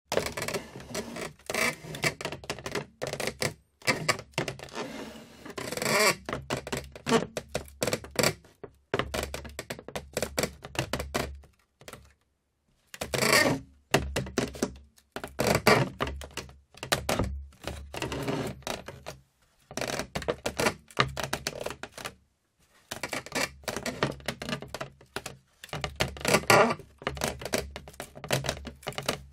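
Wood creaking and crackling in irregular bursts of dense ticks and strained squeaks, stopping briefly twice.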